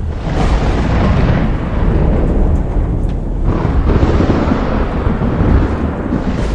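Heavy rain with rolling thunder: a deep, continuous rumble, with a fresh thunder peal breaking in at the start and another about three and a half seconds in, each dying away into the rumble.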